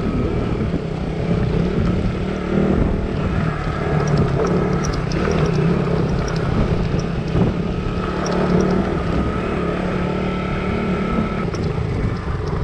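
Motorcycle engine running steadily under way, its pitch rising and falling a little with the throttle.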